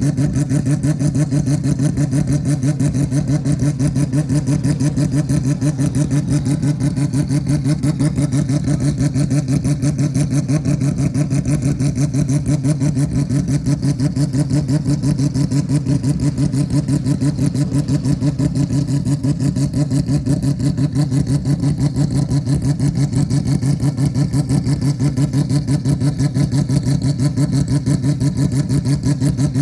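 Mazda 767B's four-rotor rotary engine running steadily at a constant low speed, most likely idling, with a rapid, even pulsing exhaust note that holds the same pitch throughout.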